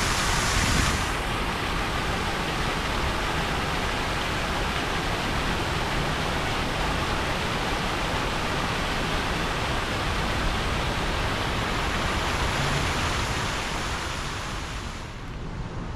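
Fountain jets splashing into a reflecting pool: a steady rush of falling water that fades near the end.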